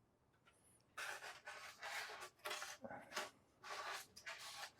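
Styrofoam packing and cardboard box rubbing and scraping as they are handled, in a run of short irregular bursts starting about a second in.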